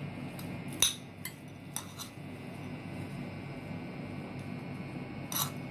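A metal spoon clinking against ceramic dishes while spooning mixed vegetables: a sharp clink about a second in, a few lighter ones just after, and another near the end, over a steady low hum.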